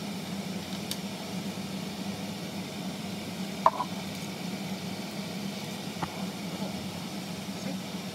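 Sweet and sour sauce simmering and sizzling in a frying pan, with a sharp clink a little under four seconds in as fried chicken pieces are tipped in from a plate, and a couple of fainter ticks.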